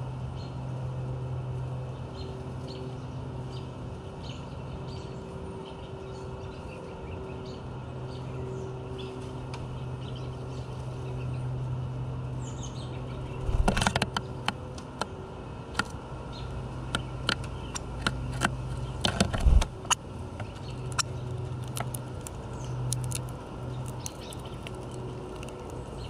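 Female northern cardinal landing on a window-mounted plastic seed feeder with a burst of wingbeats about halfway through, then many sharp taps and clicks at the feeder and a louder thump a few seconds later. A steady low hum and faint distant bird chirps lie underneath.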